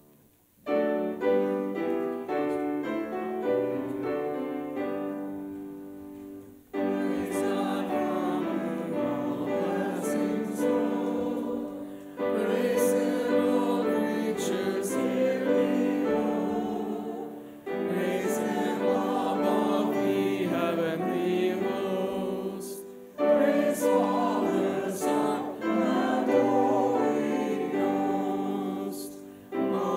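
Choir and congregation singing a hymn to piano accompaniment. A short piano introduction leads into four sung phrases with brief pauses between them.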